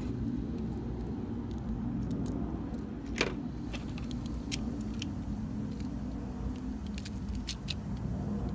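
Scattered small sharp clicks of tiny toy-car wheel and axle parts being handled and fitted, with one louder click about three seconds in, over a steady low background rumble.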